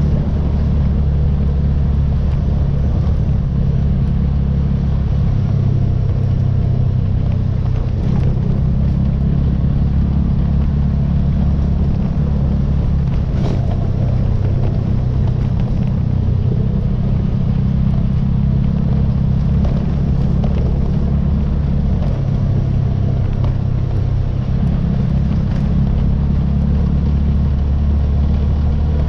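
ATV engine running steadily while driving over a gravel road: a low drone whose pitch shifts slightly every few seconds.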